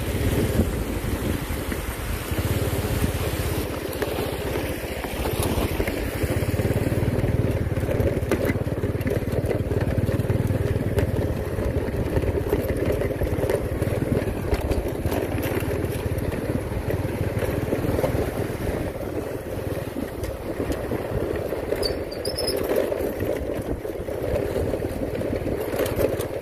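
Small motorbike engine running steadily while riding along a dirt track.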